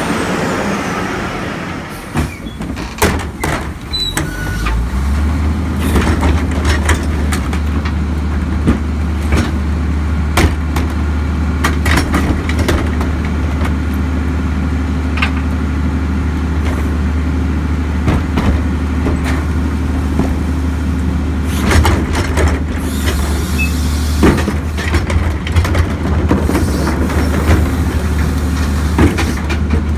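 A Crane Carrier garbage truck's diesel engine drives past, then runs at a steady low drone from about five seconds in while its Leach rear-loader tippers dump plastic refuse carts. Repeated knocks and bangs come from the carts hitting the tipper and hopper.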